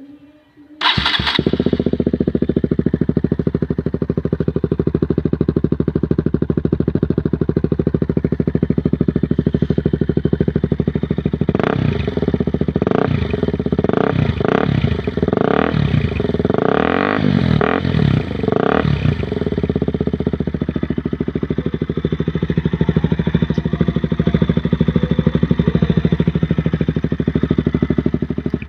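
KTM RC200's single-cylinder four-stroke engine with the silencer removed, starting abruptly about a second in and idling loud and raw. In the middle it is revved in a quick series of throttle blips, one held a little longer, then settles back to idle.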